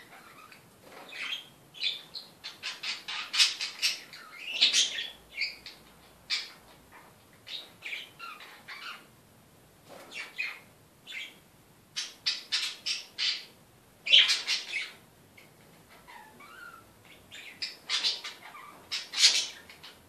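Pet budgerigars chirping and chattering in quick runs of short, high chirps. The runs come in clusters a few seconds apart, with quiet gaps between them.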